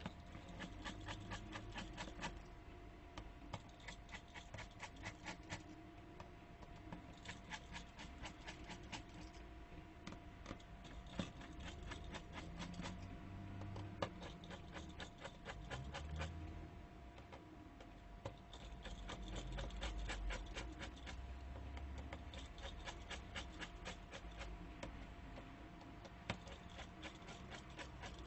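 Runs of fast, even clicking, about eight clicks a second, stopping and starting every second or two, with soft handling bumps between them: a small screwdriver working through the tiny screws on the back of a Samsung Galaxy A5 (2016).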